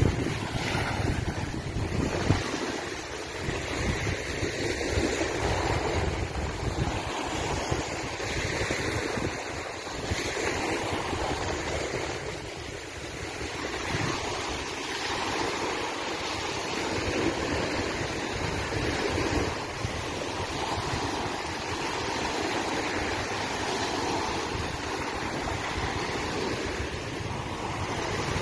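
Steady outdoor rushing noise of wind and water that swells and eases every second or two, with wind buffeting the microphone for the first couple of seconds.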